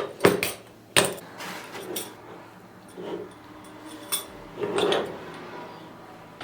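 Cutlery clinking and tapping against plates and dishes at a table: a handful of separate clinks, the sharpest about a second in.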